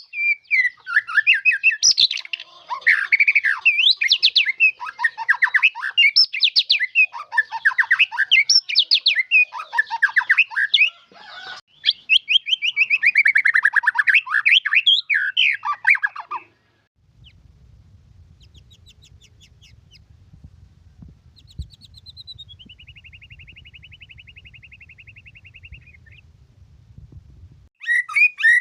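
White-rumped shama singing a loud, rapid, varied song of whistles and trills. About halfway through the song stops and a low steady hum takes over, with one long whistled note that falls and then holds. The song starts again near the end.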